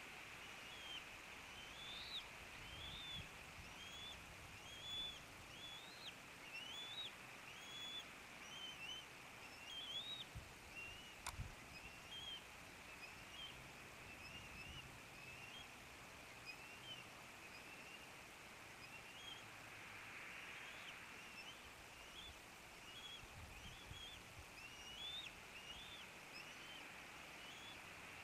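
Bald eaglet giving a steady run of short, high cheeping calls, about one or two a second with a brief pause, the food-begging peeps of a young eagle at a feeding, over a steady hiss. A single sharp click partway through.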